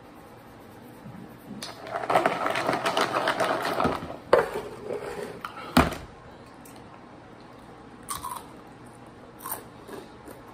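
Snacks rattling and rustling in a plastic container as it is shaken hard for about two seconds, then two sharp knocks of the container on a table, and a few small clicks near the end.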